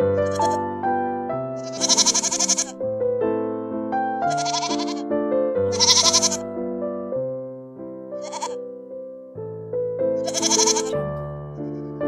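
Piano music playing a steady tune, with a mixed flock of sheep and goats bleating over it about six times, each bleat wavering and a second or two apart.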